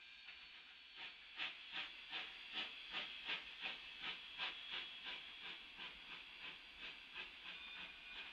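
Narrow-gauge steam locomotive working, its exhaust chuffing regularly at nearly three beats a second over a steady hiss. The chuffs start about a second in and ease off somewhat later on.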